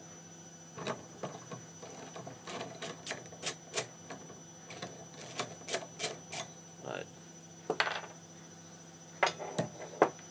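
Irregular small metallic clicks and ticks as a bolt is turned by hand in a steel thread insert set in an aluminium brake plate held in a vise, with a few louder knocks near the end. A steady electrical hum runs underneath.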